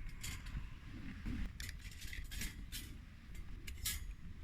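Victorinox Swiss Army knife pliers gripping and handling a hot metal cook pot: a string of short metallic clicks and scrapes.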